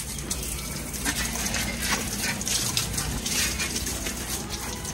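Water from a garden hose gushing steadily onto a bicycle as it is washed.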